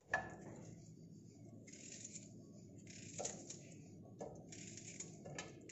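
Cut onion pieces dropping into a steel karahi and being stirred with a spoon: faint rustling and scraping, with a few sharp taps against the metal, the loudest right at the start.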